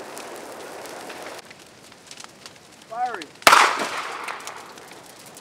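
A firefighter's handheld pyrotechnic launcher fires one sharp bang about three and a half seconds in, which rings and fades over about a second, just after a short falling whistle. The round is fired to light vegetation in a wildfire burnout operation.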